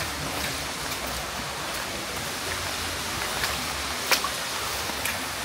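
Stream water running in a steady rush, with a few sharp splashes or drips standing out, the sharpest about four seconds in.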